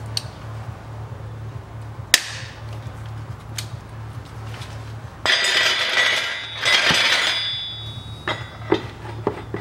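Socket ratchet with a hex bit on a front differential drain plug: a sharp click about two seconds in as the plug breaks loose, and a lighter click a little later. Then about three seconds of loud rustling and scraping as a plastic drain basin is handled under the axle, with a few short knocks near the end.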